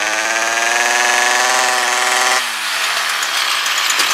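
Stihl KM56RC two-stroke engine held at high revs, then the throttle released about two and a half seconds in, the pitch dropping away to a rough idle. The engine is running again on a newly fitted aftermarket carburettor after a no-start.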